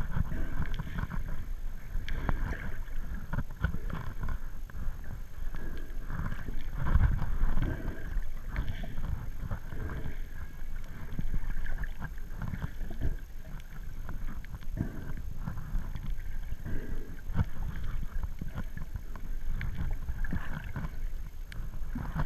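Muffled underwater rumble of moving water heard through an action camera's waterproof housing, with scattered short clicks and knocks throughout.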